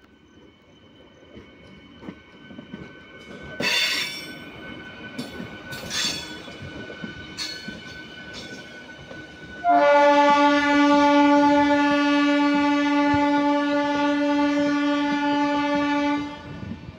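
Indian Railways electric locomotive horn giving one long blast of about six and a half seconds, starting about ten seconds in. Before it, the rumble of the approaching freight train builds, with a few sharp clanks.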